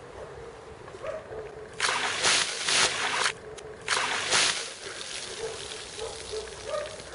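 Ice water poured from a plastic bucket over a person, splashing onto him and the grass in two loud gushes: one of about a second and a half, then a shorter one after a brief pause.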